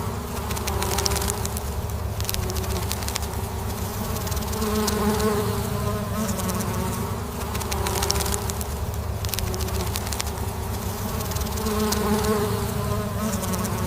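Honeybees buzzing together in a steady, many-voiced hum that swells and eases every few seconds.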